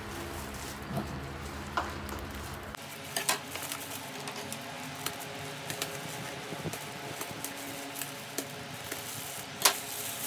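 Thin plastic packaging bag rustling and crinkling as it is cut open with scissors and pulled apart, with many short sharp crackles; the loudest crackle comes near the end.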